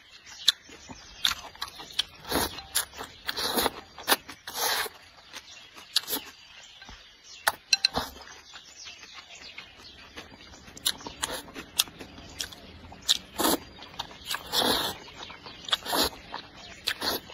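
Close-up eating sounds: repeated slurps of noodles and chilli broth sucked from a bowl, each lasting a fraction of a second, mixed with chewing, lip smacks and sharp clicks of chopsticks against the bowl.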